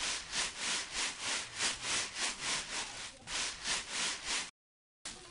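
Dishes being scrubbed with a scouring pad: brisk back-and-forth scraping strokes, about three a second. They stop abruptly for half a second near the end, then start again.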